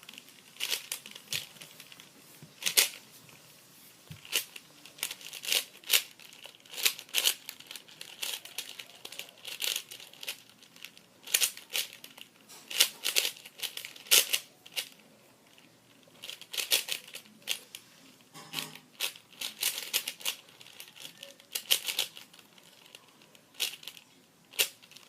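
Plastic 4x4 speed cube (MoYu AoSu) being turned by hand during a solve: irregular runs of quick clacking layer turns, with short pauses between runs.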